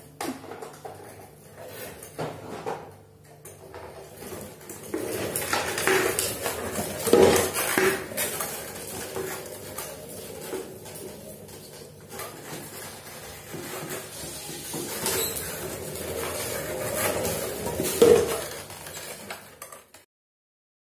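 Plastic child's tricycle clattering and rattling as it rolls over a tiled floor, with irregular knocks; it stops abruptly near the end.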